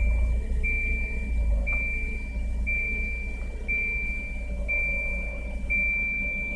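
High-pitched electronic warning beep, likely the Volvo 940's cabin warning chime, repeating about once a second over a low, uneven rumble.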